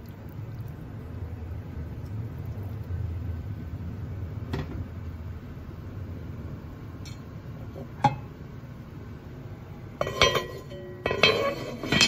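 Dishes and tableware clinking: a couple of light taps, then two short bursts of clatter with a ringing tone near the end, over a low steady hum.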